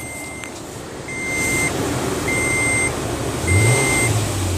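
A vehicle's warning chime beeping evenly, about one beep every 1.2 seconds, over the 2007 Toyota FJ Cruiser's 4.0 L V6 engine running just after starting. The engine rises briefly near the end. No engine whine comes through the VHF radio: the homemade noise filter seems to be working.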